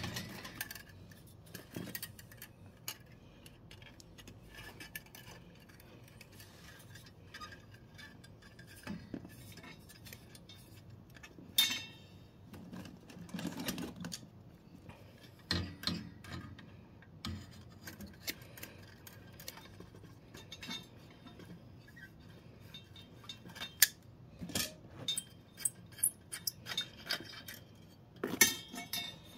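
Light metallic clinks, taps and scrapes from handling a gas boiler's pilot burner assembly and thermocouple fitting on a steel burner tube, with a few louder knocks scattered through.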